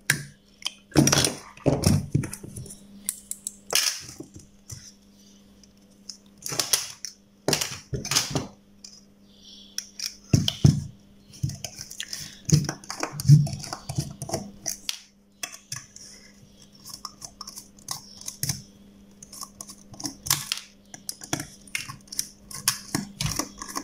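Irregular clicks, knocks and clatter as circuit boards and a screwdriver are handled and worked against the sheet-metal case of a switch-mode power supply, with a faint steady hum underneath.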